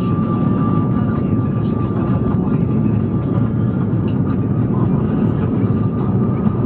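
Steady cabin noise of an Airbus A340-300, its four CFM56 engines and the airflow making a constant low rush, with a faint steady whine above it.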